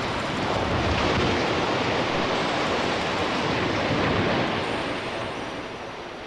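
Rumble and roar of a colliery structure collapsing after explosive demolition charges are fired, with debris coming down. The noise holds steady and loud, then fades away over the last second or two.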